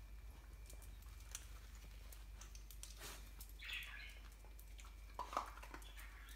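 Small dog moving about on a tiled floor, her claws giving faint scattered clicks and scrapes as she noses at something. A short high squeak comes about four seconds in, and a sharper knock a little after five seconds.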